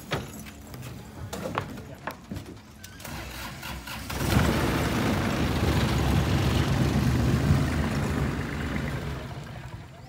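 A motorboat's engine starts about four seconds in and runs with a loud, steady rumble, then fades away near the end. Light knocks and clicks come before it.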